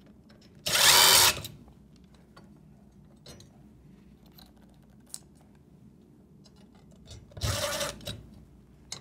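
Cordless drill/driver with a Phillips bit running in two short bursts about six seconds apart, driving screws into a wall plate bracket. Faint clicks of handling in between.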